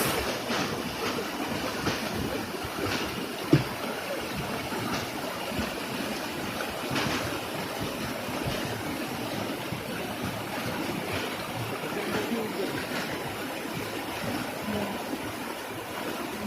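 Waterfall water rushing in a steady, even noise, with one sharp knock about three and a half seconds in.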